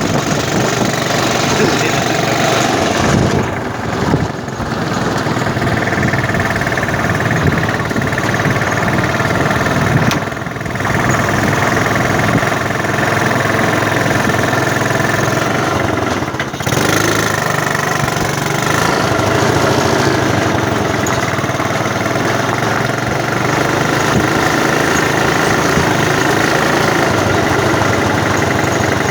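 Honda Supra motorcycle engine, a small single-cylinder four-stroke, running steadily in a small homemade car. Its note dips briefly about 4, 10 and 16 seconds in.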